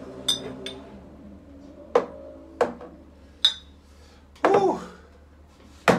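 Glass beer bottles being picked up and set down on a table, clinking and knocking: about six sharp knocks and clinks, a couple with a short glassy ring, the loudest near the end.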